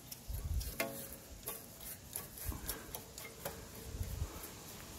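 Scattered light clicks and ticks with a few soft low thumps, like handling noise around an engine bay, and one short chirp about a second in.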